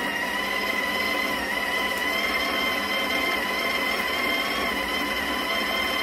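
Breville Smart Grinder Pro conical burr grinder running steadily with a high motor whine, grinding espresso beans straight into a portafilter on a timed seven-second, two-shot program.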